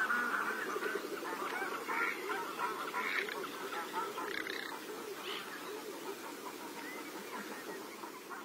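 A flock of garganey ducks calling: many short calls overlap in a steady chatter that slowly grows quieter.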